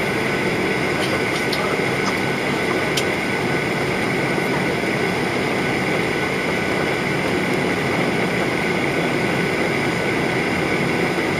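Steady cabin noise of a Boeing 737-800 in flight, heard from a seat over the wing: the CFM56 turbofan's drone and rushing airflow, with an even high hiss above it. A faint click about three seconds in.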